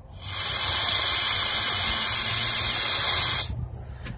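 A hard breath blown through the cut-off barrel of an ink pen into a blind bolt hole, a steady hiss of air that lasts about three seconds and stops abruptly, clearing debris out of the hole.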